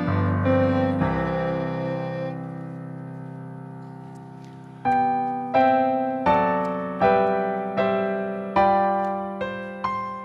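Piano playing slow chords. A chord rings and fades for about four seconds, then a new phrase starts about five seconds in, with a chord struck roughly every three-quarters of a second.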